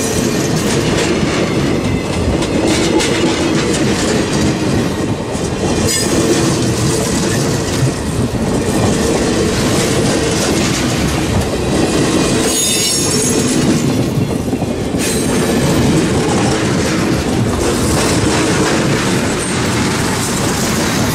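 Cuyahoga Valley Scenic Railroad passenger train cars rolling past a grade crossing, steel wheels running over the rails in a steady, loud rumble.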